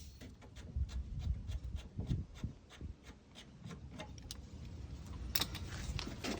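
A run of light clicks, a few a second, with low knocks and rubbing from handling underneath.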